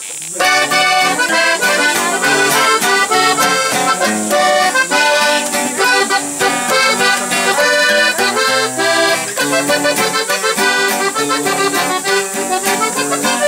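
Live piano accordion playing a quick melody with acoustic guitar accompaniment, an instrumental passage with no singing.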